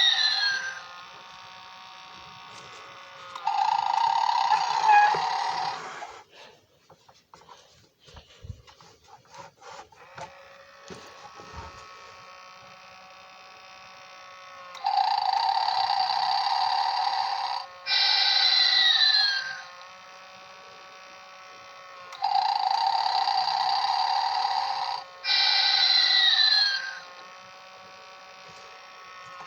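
Animated snoring Santa figure playing its snore sound: a harsh snore of about three seconds, then a whistling exhale that falls in pitch, repeating three times. A stretch of several seconds about a fifth of the way in holds only scattered clicks and knocks.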